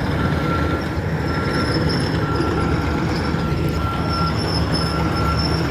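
Asphalt milling machine's diesel engine running steadily, with a reversing alarm beeping about once a second.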